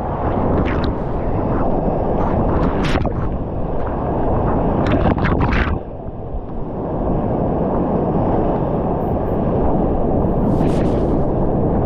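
Loud, continuous rush of big whitewater rapids heard up close from a kayak, with sharp splashes of spray hitting the camera microphone. About six seconds in, just after water washes over the camera, the roar drops and dulls for a moment before building again.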